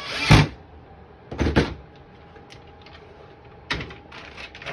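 Wooden crate knocked about and set down on a table: a loud knock just after the start, two quick knocks about a second and a half in, and another near the end, with light clicks and rattles between.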